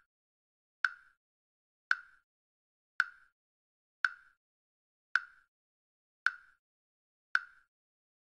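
Chess app's piece-move sound effect: a short, sharp click with a brief ring, repeated seven times about once a second as the replayed moves are played.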